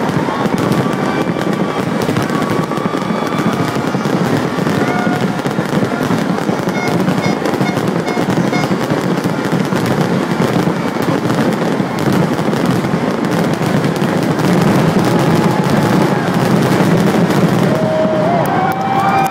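Fireworks display: a dense, unbroken barrage of aerial shells bursting and crackling.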